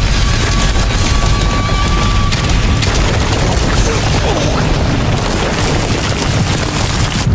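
Sustained explosion rumble of an anime fight soundtrack, with music underneath. A thin steady tone sounds over it for the first three seconds or so.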